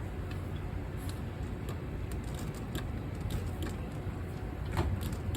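Light clicks and taps of a storm door latch being handled and tried, with a sharper click near the end, over a steady low rumble.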